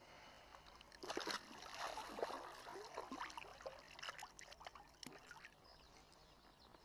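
Hands splashing and sloshing in shallow river water as a small pike is lowered back in and released. A flurry of splashes starts about a second in, then smaller splashes and drips fade out.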